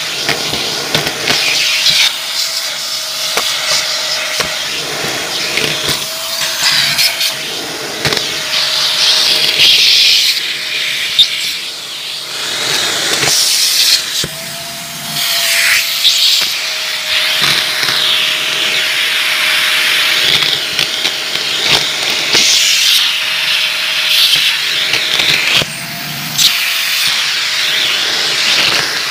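Vacuum cleaner running with a red floor nozzle, sucking up a pile of foil confetti, glitter and plastic beads from a hardwood floor. A steady motor whine sits under a hiss of suction, and debris crackles and rattles as it is pulled into the nozzle; the whine wavers briefly a few times as the nozzle is loaded.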